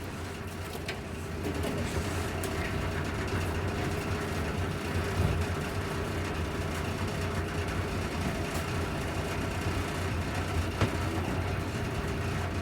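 Ready-mix concrete truck's diesel engine running steadily, a low hum, with a few faint clicks over it.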